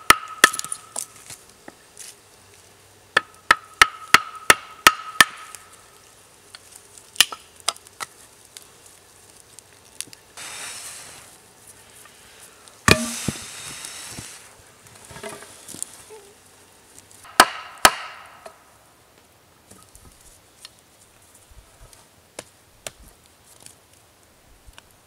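Hatchet chopping into a wooden pole: sharp wooden strikes in short runs, about six in quick succession a few seconds in, then scattered single blows, some followed by a brief ring. Short spells of rustling fall between the blows, and the last part is quiet.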